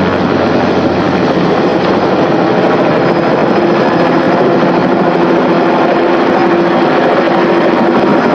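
Helicopter hovering, its rotor and engine running loudly and steadily.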